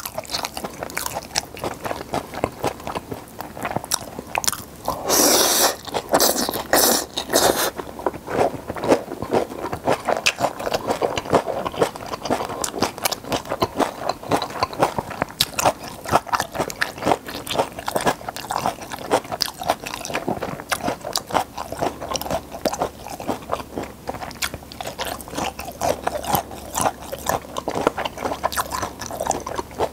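Close-miked wet chewing and slurping of stir-fried pepper japchae noodles: a dense run of small irregular mouth clicks, with a louder noisy stretch about five to eight seconds in.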